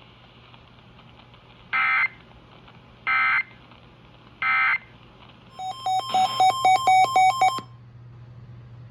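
Three short bursts of Emergency Alert System SAME data tone, the end-of-message code closing a broadcast warning. They are followed a second later by a quick run of loud electronic beeps, about four a second, lasting two seconds.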